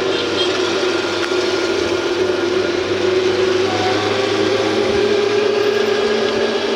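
Ride noise from inside a moving open-sided rickshaw: a steady motor hum with a constant rushing noise over it.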